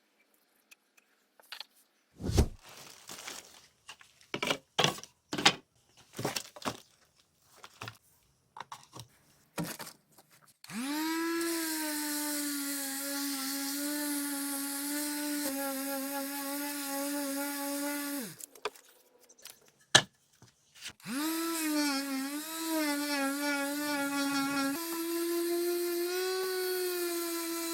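A few seconds of scattered knocks and taps on wood. Then a small electric power tool spins up and runs with a steady whine, stops, and after a click starts again, its pitch dipping and wavering now and then.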